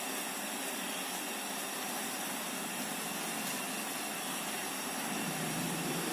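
Portable cartridge gas stove burning with a steady hiss under a pot of boiling water.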